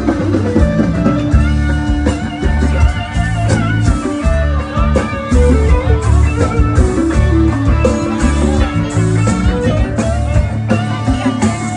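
Band playing an instrumental passage: a guitar melody over bass and drums with a steady beat.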